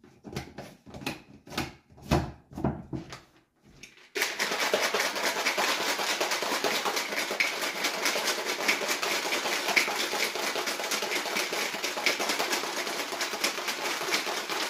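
Plastic shaker cup of water, ice and energy-drink powder shaken hard for about ten seconds: a fast, continuous rattle of ice that stops abruptly. Before it come a few separate taps and knocks as the cup is handled.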